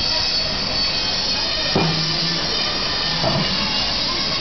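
Industrial band saw cutting through a giant tuna, a steady grinding noise with a faint high whine, broken by two short knocks.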